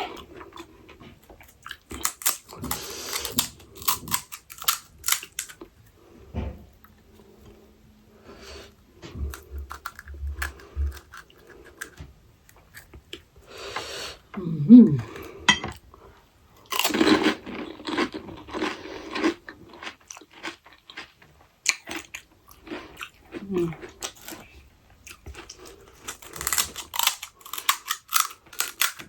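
Close-miked eating of pani puri: crisp puri shells cracking and crunching between the teeth, with wet chewing, in clusters separated by short pauses.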